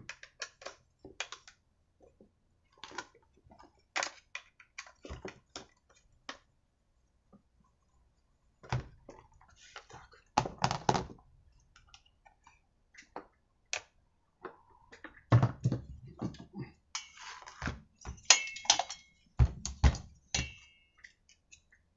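Hand disassembly of a petrol brushcutter engine: irregular clicks and taps of a screwdriver and hex key working screws, with plastic and metal parts knocking as they are handled and set down, and a few heavier thuds.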